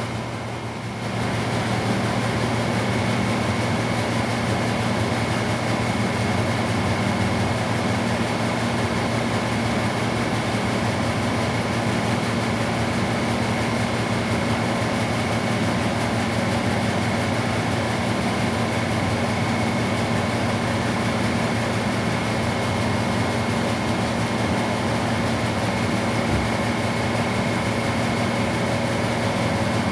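Steady hum of running machinery with a thin, high steady whine above it, unchanging throughout apart from a brief dip in level in the first second.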